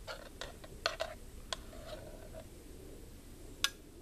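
Light metal clinks and clicks of a mess kit pot being handled, lid, bail handle and spoon knocking: a quick cluster of clinks in the first second and a half, then a single sharper one about three and a half seconds in.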